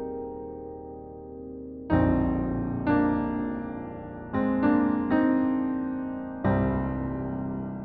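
Solo piano playing slow, improvised music. A held chord fades, then new chords and notes are struck about two seconds in and every second or so after, each left to ring and die away.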